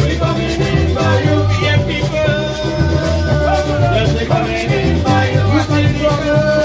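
Live Caribbean string band music: electric bass guitar and banjo playing a steady, strong bass-driven beat while several voices sing together into microphones.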